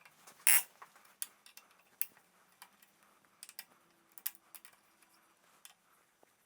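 Irregular light metallic clicks and taps of hand tools on the handlebar clamp bolts, the loudest about half a second in.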